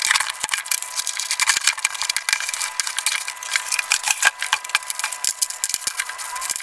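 Cardboard box and bubble-wrap packaging being handled and pulled open by hand: a dense, continuous run of crinkles and crackles.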